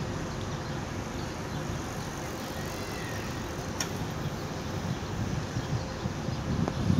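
Steady hum of city street traffic, with a single sharp click about four seconds in.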